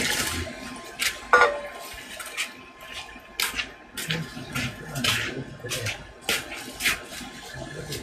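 Water poured from a small metal bowl into a plastic bucket, splashing at the start, followed by a string of short splashes and clatters.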